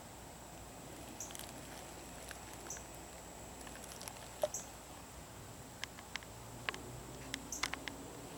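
Faint scattered clicks and light taps of small objects being handled, over a steady low hiss. The clicks come more often in the last few seconds.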